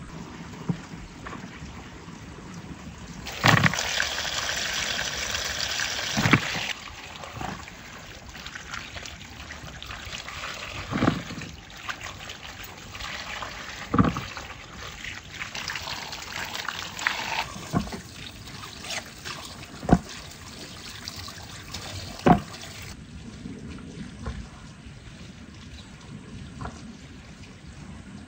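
Water pouring and splashing as a squash is rinsed by hand under a falling stream into a plastic tub, loudest a few seconds in. A handful of sharp knocks come as the vegetables are handled and set down.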